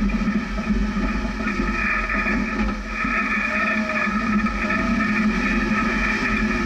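Jeep engine running at low speed as it crawls over rough, rocky ground, a steady drone.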